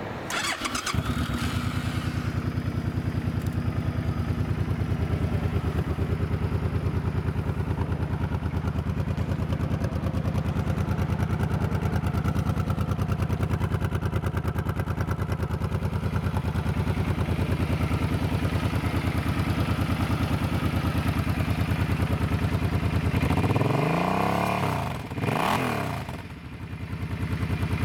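A 2014 Suzuki Boulevard C50 Boss's 805 cc V-twin starts about a second in and settles into a steady idle. Near the end the throttle is blipped twice, the engine revving up and dropping back to idle each time.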